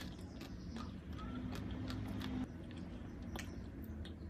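A person quietly chewing a mouthful of tortilla soup with fried tortilla strips, with small wet mouth clicks scattered throughout.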